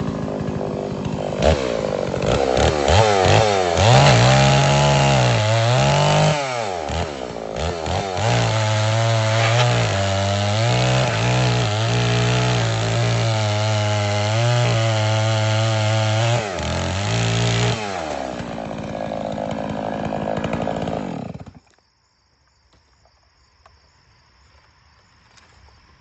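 Holzfforma G660 92 cc two-stroke chainsaw cutting through wood scraps at high revs, its pitch dipping and recovering as the chain loads up in the cuts. Near the end it drops to a lower, steadier run, then cuts off suddenly.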